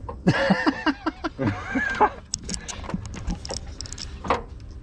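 A person laughing in a string of short bursts, followed by scattered sharp clicks and light knocks of tools on metal.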